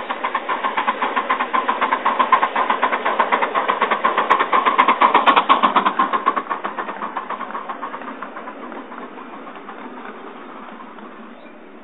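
Miniature steam locomotive chuffing in rapid, even beats as it passes close by, loudest about five seconds in and then fading as it pulls away.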